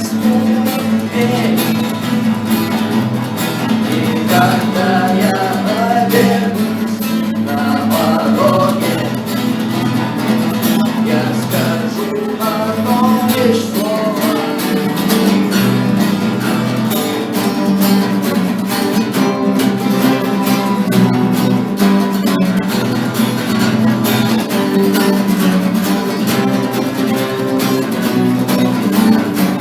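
Acoustic guitar music: a steady strummed accompaniment, with a melody line over it through roughly the first half and the guitar carrying on alone after that.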